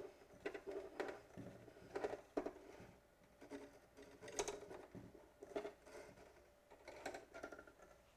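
Irregular light clicks and short rustling strokes of handling, coming unevenly a few times a second.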